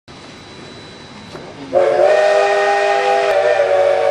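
Steam locomotive chime whistle, from the Cumbres & Toltec's K-36 2-8-2 Mikado No. 488, over a faint hiss. It opens about a second and a half in with a short upward slide, then holds a loud, steady chord of several notes.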